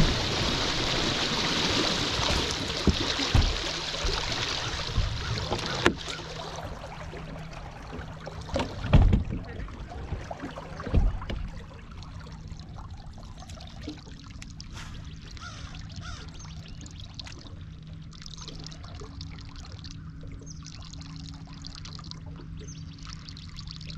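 A bass boat coming off plane: the rush of the outboard and the water along the hull fades over the first six seconds. A few thumps on the deck follow, then a faint steady hum with water lapping and trickling against the hull while the boat sits nearly still.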